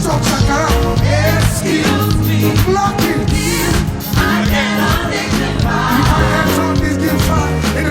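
Gospel praise music with voices singing over a band, with a steady bass line underneath.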